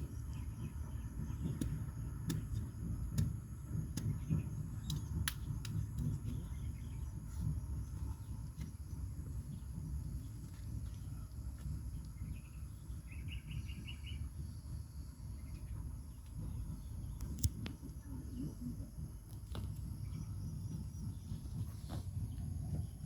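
Outdoor ambience: a steady low rumble with scattered light clicks and a faint steady high insect drone, and a short run of quick bird chirps about 13 seconds in.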